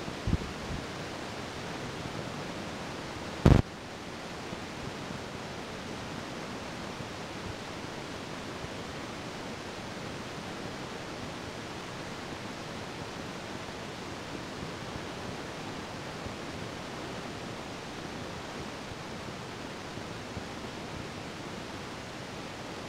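Steady noise inside a moving city bus: an even hiss and rumble of the bus running on the road. One short, loud knock about three and a half seconds in.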